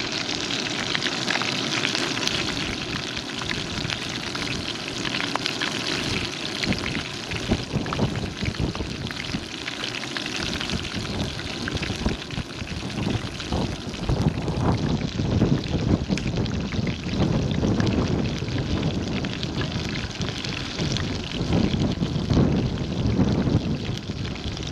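Breaded chicken frying in hot oil in a skillet: a steady sizzle with fine crackling. From about halfway a low, irregular rumble joins in.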